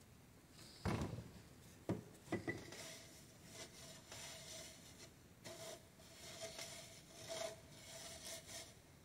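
Hands rubbing and sifting Siberian motherwort seeds across a fine sieve screen in a wooden frame: a dry, patchy rustling scrape as the dust is worked through the mesh and the seeds stay on top. Three knocks in the first couple of seconds, the first the loudest.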